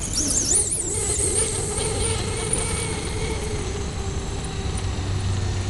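The Castle 3600kv brushless motor of a 2WD Traxxas Slash RC truck whining high as it revs up and down in the first second or so, then holding a steadier whine.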